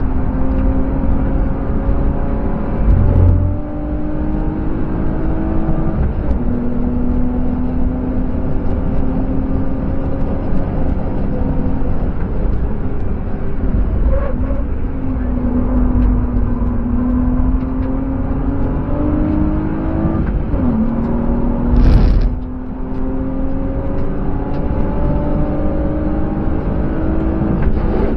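BMW E36 coupe's M50B25TU 2.5-litre straight-six heard from inside the cabin under load at speed, its note climbing slowly and dropping in pitch at upshifts about six and twenty seconds in, over steady road noise. Two loud rushing bursts stand out, about three seconds in and again about twenty-two seconds in.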